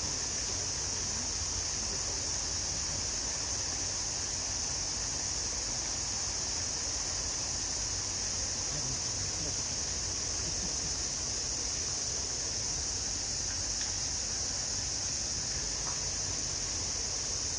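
Steady, high-pitched drone of a summer cicada chorus, unbroken and even throughout.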